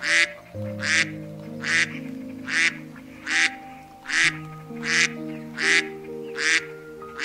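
A duck quacking in an even, regular series, a little more than one quack a second, over background music of soft held notes.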